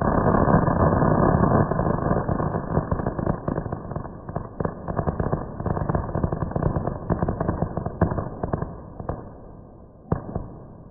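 Homemade crackle and fuse firework mine firing: a dense, rapid crackling of many small pops, loudest for the first couple of seconds, then thinning to scattered cracks that fade out. One last sharp crack comes about ten seconds in.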